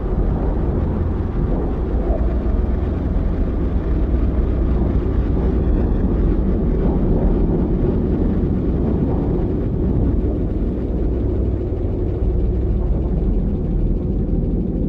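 Steady low rumbling drone from an animation's ambient soundtrack, with no distinct events and no speech.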